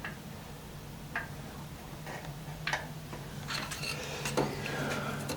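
A few light, scattered clicks and taps from hands and a screwdriver working around an old tractor's starter solenoid and wiring, over a faint low steady hum.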